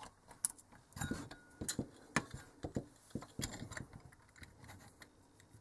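Scattered small clicks and knocks of hands working wires out of a plastic connector box and handling a metal LED spotlight. The clicks are thickest in the first three seconds or so and grow sparse near the end.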